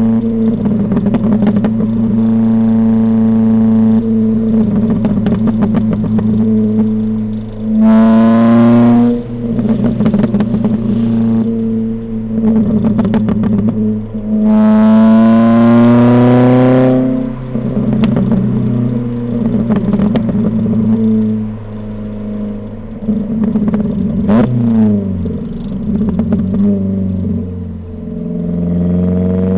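Ford Fiesta ST150's 2.0-litre four-cylinder engine heard through its modified exhaust, picked up at the tail of the car. It runs steadily, rises in pitch through two hard accelerations about a quarter of the way in and about halfway, and drops in pitch as the revs fall near the end. Pops and crackles come from the exhaust as the throttle is lifted.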